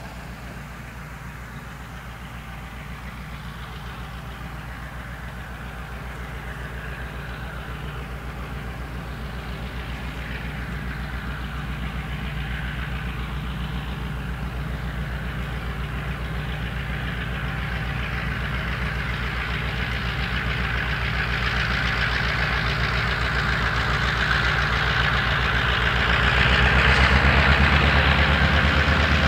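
EMD MRS-1 diesel locomotive running as it approaches, its engine drone growing steadily louder, with a rising hiss building in the last few seconds.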